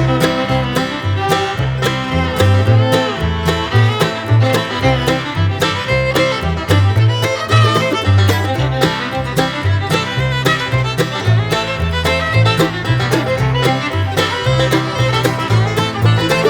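Upbeat bluegrass instrumental music with fiddle, banjo and guitar over a walking bass line.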